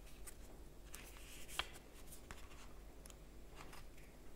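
Pages of a small paperback guidebook being turned by hand: faint paper rustles, with one sharp tick about a second and a half in.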